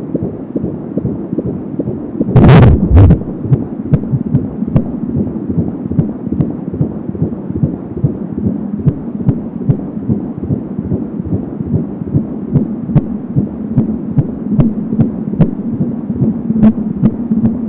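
Fetal heartbeat at 19 weeks through an Angelsound handheld fetal doppler's speaker: a fast, even pulse at about 170 beats a minute, close to three a second. About two and a half seconds in, a loud crackling burst briefly covers it.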